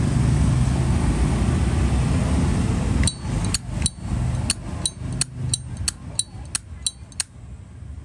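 A Zippo lighter's lid flicked open and snapped shut over and over: about a dozen bright metallic clinks with a ringing tone, roughly three a second, starting about three seconds in. Before them, a steady low rumble.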